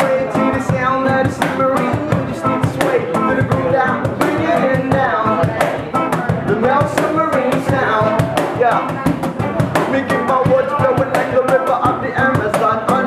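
Live reggae song: a man sings over electric and acoustic guitars, with a steady percussive beat.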